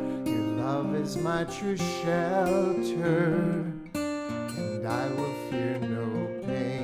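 Background music: an acoustic guitar plucking and strumming, with a melody line held with vibrato over it.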